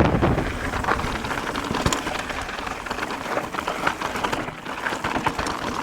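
Mountain bike rolling over a rough dirt trail: a dense crackle of tyres on grit and small stones, with rattling clicks from the bike.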